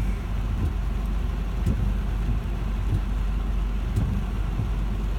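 Steady low rumble heard from inside a car, with rain falling and a few faint ticks.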